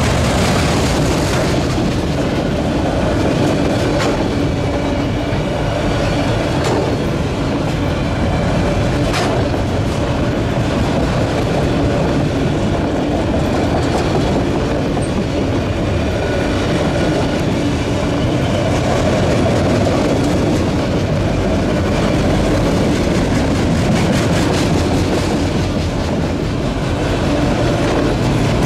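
Freight train of enclosed autorack cars rolling past at close range: a steady heavy rumble and rattle of the cars, with steel wheels clacking now and then over the rail joints.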